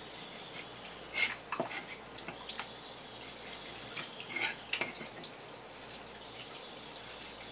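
Kitchen knife cutting and trimming wet, skinned pufferfish on a wooden cutting board. A few short wet clicks and squelches come about a second in and again past the middle, over a steady low hiss.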